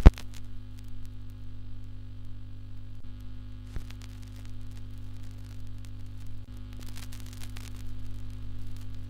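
Steady electrical hum with faint static hiss and scattered faint ticks, starting with a sharp click at the very beginning just after the guitar music cuts off.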